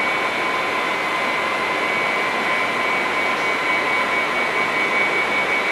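Steady drone and hiss of hatchery machinery, with a constant high whine over it.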